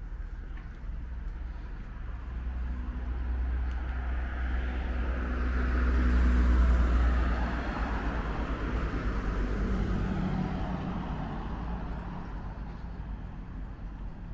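A car driving past on the street. Its engine and tyre noise grow louder to a peak about six to seven seconds in, then fade away.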